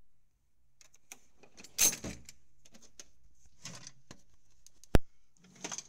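Metal drawers of a Craftsman tool box sliding on their runners, with the tools inside rattling, and a sharp metal clack about five seconds in as a drawer hits its stop.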